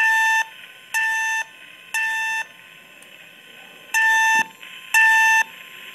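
Fire alarm speaker sounding the temporal-three evacuation tone from a Simplex 4100U panel drill. Three half-second beeps a second apart, a pause of about a second and a half, then three more.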